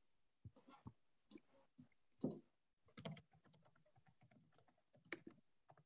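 Faint typing on a computer keyboard: irregular keystroke clicks, sparse at first, then a quicker run of keystrokes from about three seconds in.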